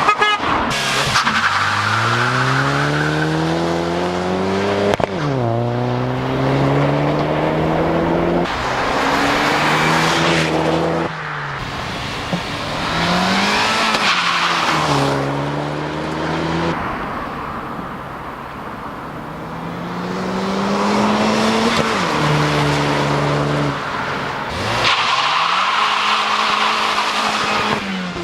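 Chevrolet HHR SS doing a burnout: the turbocharged four-cylinder engine revs in several long rising pulls while the front tires spin and squeal.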